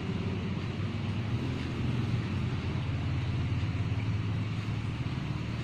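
Steady low hum of a motor vehicle engine running, with road noise.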